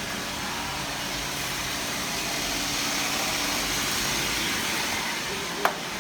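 Steady hissing hum of running workshop machinery, with one sharp click near the end.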